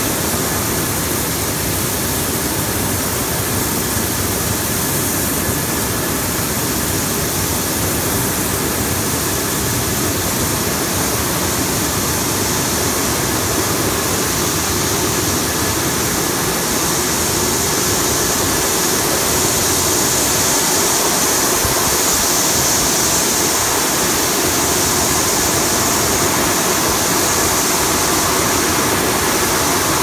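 Vegetable spray washing machine running: a steady rush of water spraying and bubbling through its stainless-steel wash tanks, mixed with machine noise, a little louder and hissier in the second half.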